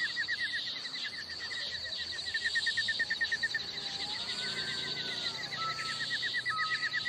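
A cat's long, drawn-out yowl that rises and then falls in pitch, about halfway through, in a standoff between two cats. Behind it come fast repeated chirping and a steady high drone, with a few short whistled notes near the end.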